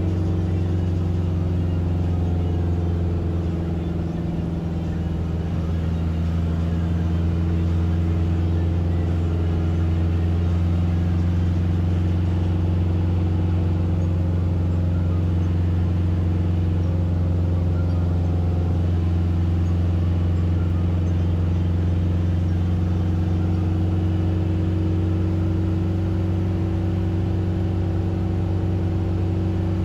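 Steady low hum of a moving vehicle heard from inside the cabin: engine and road drone with a faint hiss, unchanging throughout.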